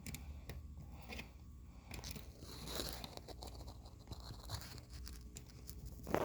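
Faint handling noises: scattered clicks and knocks, a rustling scrape in the middle, and a sharper knock near the end. The Shark upright vacuum cleaner is being readied to be plugged in and is not running yet.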